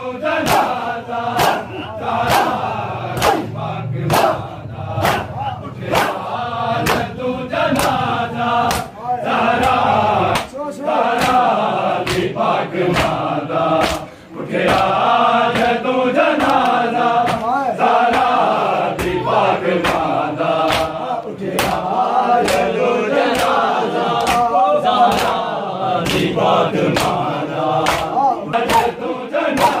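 Crowd of men chanting a Punjabi noha (Shia mourning lament) together while beating their chests in matam, the sharp hand-on-chest slaps landing in unison at a steady beat of a little over one a second.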